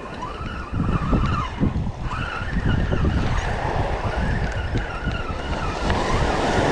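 Spinning reel being cranked to bring in a hooked fish: its gears whir in a wavering whine that rises and falls with the turning of the handle. Heavy wind rumble on the microphone and surf run underneath, and the wind is the loudest part.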